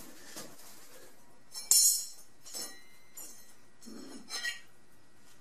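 Steel garage door opener hardware, the door arm and clevis pin against the door bracket, clinking: one sharp metallic clink with brief ringing about two seconds in, then a few lighter clicks and taps as the pieces are tried for fit.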